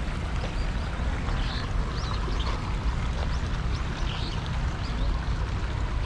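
Outdoor ambience: a steady low rumble with short, high bird chirps scattered through it.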